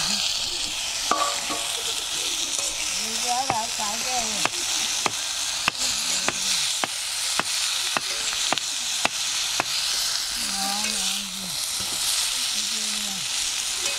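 Pirandai (veldt grape) stems frying with dried red chillies in oil in an iron kadai, sizzling steadily as a metal spatula stirs them. From about four seconds in to about ten seconds, the spatula scrapes and taps against the pan about twice a second.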